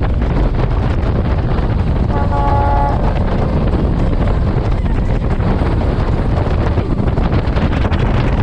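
Open speedboat running at high speed: wind buffets the microphone over the rush of spray and engine noise. A horn toots once, briefly, a little over two seconds in.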